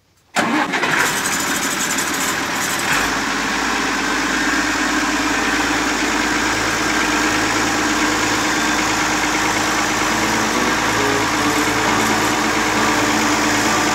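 Allis-Chalmers 180 tractor engine coming on suddenly about half a second in, then running steadily at idle.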